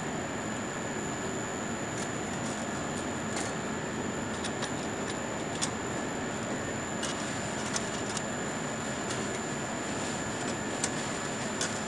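Light, irregular clicks and ticks over a steady hiss with a high-pitched whine.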